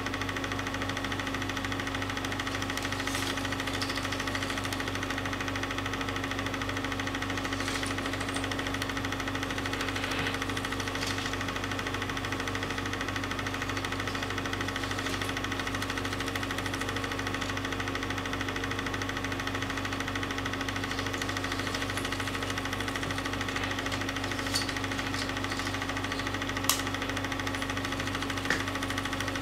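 Film projector running: a steady mechanical hum that never changes, with a few faint clicks near the end.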